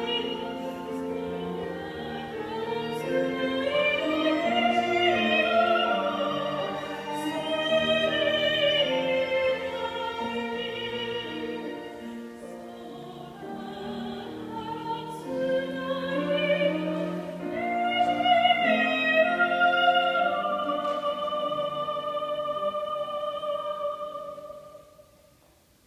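Soprano singing in an operatic style with vibrato, accompanied by piano, violin and cello. The music dies away to a near-silent pause about a second before the end.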